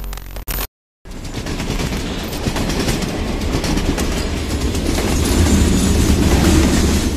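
Train wheels on rail heard from aboard a moving passenger train while another passenger train passes close alongside: a deep rumble with rapid clickety-clack, after a brief cut about a second in, growing louder toward the end.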